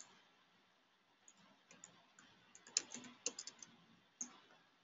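Faint typing on a computer keyboard: scattered single keystrokes, then a quick run of several keys about three seconds in.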